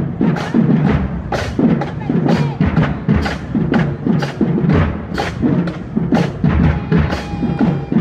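Marching band playing for a parade, led by a drumline pounding a steady beat of several strikes a second, with voices shouting over it.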